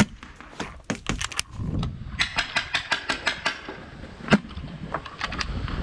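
Paintball markers firing: a quick string of about a dozen sharp shots between two and three and a half seconds in, with scattered single cracks around it, the loudest a little past four seconds.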